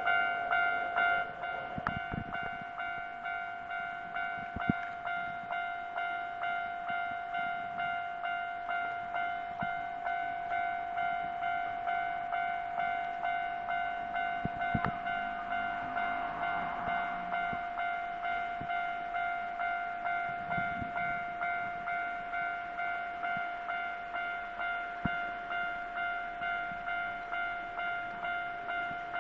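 Japanese level-crossing warning bell ringing: a steady, evenly repeating two-tone clang, signalling that a train is approaching and the crossing is closed.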